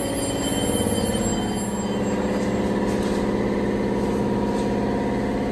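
Cummins diesel engine of a Dodge Ram 2500 idling steadily with an even, slightly pulsing hum.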